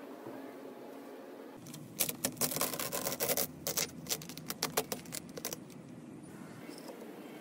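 Clear plastic sheet crinkling and crackling as it is pulled off the wall: a dense run of irregular sharp clicks starting about two seconds in and lasting about three and a half seconds.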